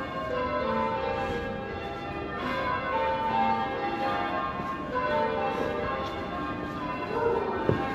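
Church bells ringing, one bell struck after another with the tones lingering and overlapping.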